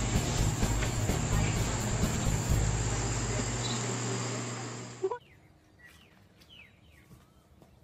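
A steady loud hiss with a low hum cuts off abruptly about five seconds in. After it comes quiet outdoor ambience with a few faint, short bird chirps.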